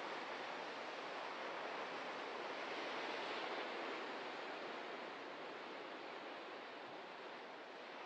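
Ocean surf breaking and washing over a rocky shoreline: a steady rushing noise that swells a few seconds in as a wave breaks, then eases off.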